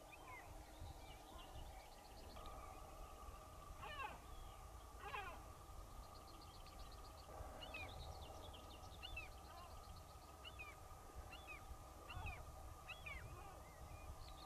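Faint wild birds calling: scattered chirps, short trills and quick sweeping calls, with two longer sweeping calls about four and five seconds in, over a faint steady hum.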